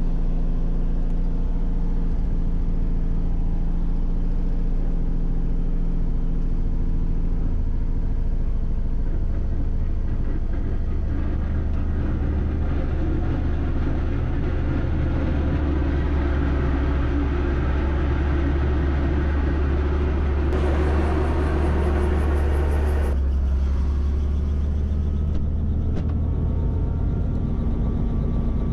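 Robinson R44 helicopter's six-cylinder piston engine and rotor running steadily on the ground before lift-off, a loud low drone heard from inside the cabin. A rougher rumble swells in about midway, and a brief hiss near the end cuts off suddenly.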